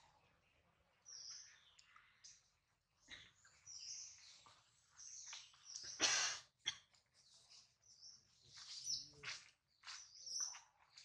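Baby macaque crying: a string of short, high-pitched squeaky distress cries, the loudest about six seconds in.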